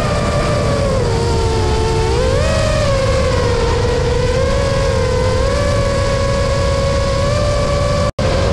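FPV quadcopter's brushless motors and propellers whining over a low rumble of wind on the onboard microphone. The pitch sags about a second in, climbs back about two and a half seconds in, then holds steady. The sound drops out for an instant near the end.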